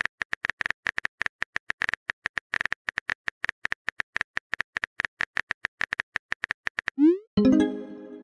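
Texting-app sound effects: a quick run of keyboard typing clicks, about six a second, as a message is typed out. About seven seconds in they stop, followed by a short rising swoosh and a brief message alert tone as the message posts.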